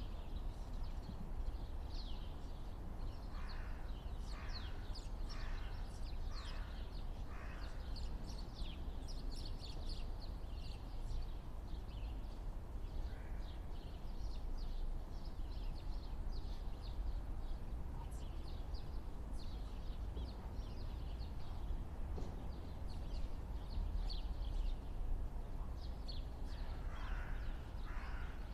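Birds calling: many short high chirps throughout, with a run of about five lower, harsher calls roughly a second apart a few seconds in and more near the end, over a steady low rumble.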